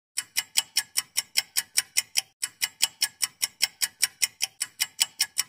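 Ticking sound effect: sharp, evenly spaced ticks about five a second, with a short break a little over two seconds in.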